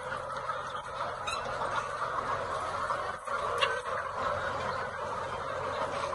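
A large flock of laying hens clucking and chattering in a dense, continuous din, with a couple of sharper calls standing out briefly.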